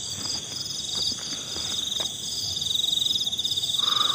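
Night chorus of insects, a steady high pulsing trill in several pitches, with frogs calling. A short, lower call stands out near the end.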